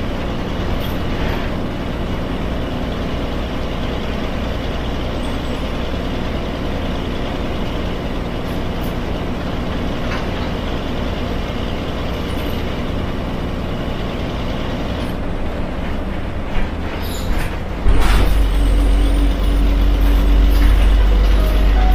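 The front-mounted NQ160N4 engine of a Yangzijiang WG6100NQC4 city bus running steadily while the bus drives, heard inside the cabin. Near the end come a few sharp clicks, then a sudden, much louder deep rumble with a held tone that lasts a couple of seconds.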